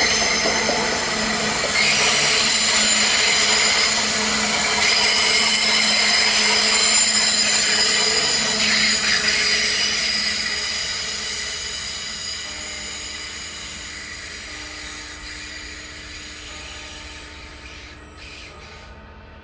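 Regional train passing with a loud, high wheel squeal of several tones at once, which fades away over the second half as the train moves off.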